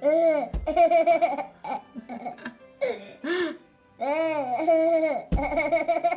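Background music: a bright melodic phrase with a low thump, played and then repeated about four seconds later.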